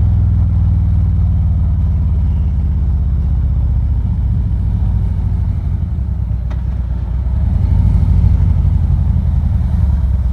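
Harley-Davidson Ultra Limited's V-twin engine running while riding, a steady low rumble mixed with wind noise, heard through a lapel mic inside a helmet with the visor down. It gets a little louder from about eight seconds in.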